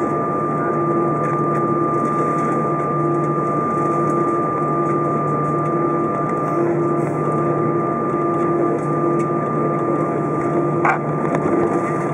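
Cabin noise of an Airbus A320 taxiing, heard from a seat over the wing: a steady engine hum with a constant high tone on top. A short click about eleven seconds in.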